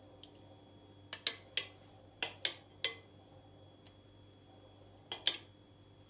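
Metal spoon clinking against a glass bowl while scooping thick tomato-paste sauce: several sharp clinks, bunched between about one and three seconds in and again twice near the end.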